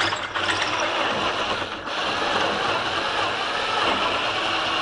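Ryobi cordless drill running steadily, its bit boring a hole into a wooden drawer side through a mounting hole in a steel drawer slide.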